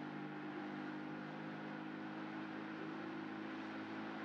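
Motorboat engine running steadily at towing speed, an even drone over a steady hiss.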